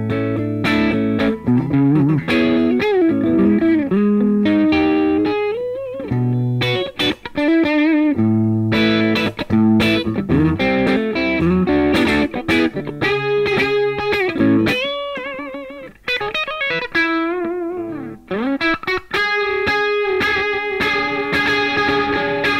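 Electric guitar, a Gibson Les Paul Classic with Mojo "Vintage PAF" humbucking pickups, played through an amplifier: a lead passage of picked single notes and chords, with string bends and vibrato on the held notes.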